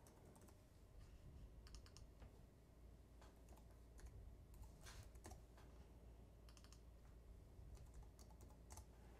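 Faint typing on a computer keyboard: scattered, irregular key clicks.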